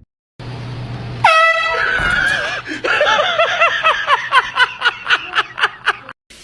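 An air horn blasts loudly about a second in, followed by a person's voice in a rapid string of short cries, about three a second.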